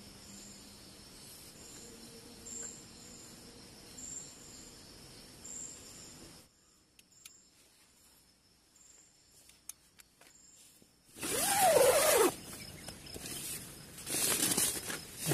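Faint insect chirps, short high calls about every half second, then near quiet after about six seconds. About eleven seconds in, a loud rasp of a tent door zipper being pulled open, with the tent fabric rustling.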